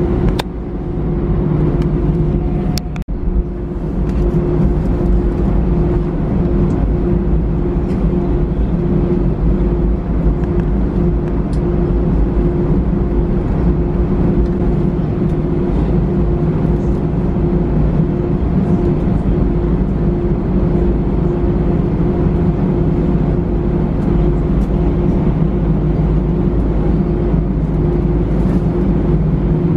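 Steady jet-engine drone with a constant hum tone, heard from inside the cabin of an Airbus A320 taxiing along the runway. A sharp click about three seconds in.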